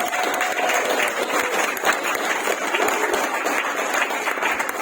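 A group of people applauding: dense, steady clapping at the end of a song.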